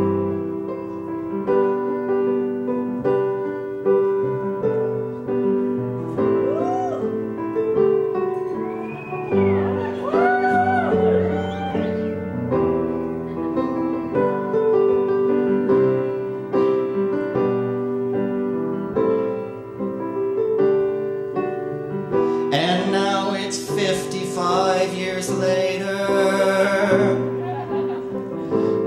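Piano accompaniment playing repeated chords, with a singer's voice in wide vibrato coming in about a quarter of the way through. Near the end the singing grows louder and fuller, with heavy operatic vibrato over the piano.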